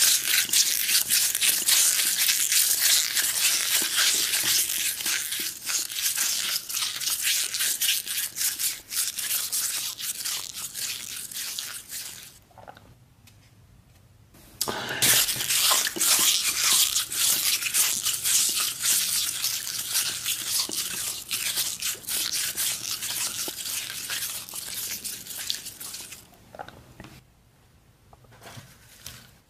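Close-miked crunchy, crackling chewing of a crumbly, powder-filled bite, in two long bouts with a pause of about two seconds in the middle.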